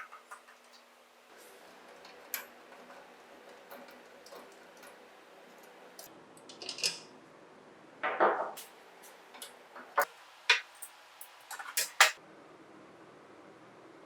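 Scattered clicks and knocks of small hard parts being handled, with a short scrape about eight seconds in and a few sharper clicks near the end.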